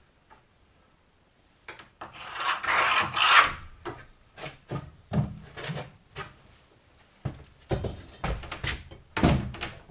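Wooden boards being handled: a scrape of wood sliding across wood about two seconds in, then a series of short knocks and clatters as the pieces are set down and shifted.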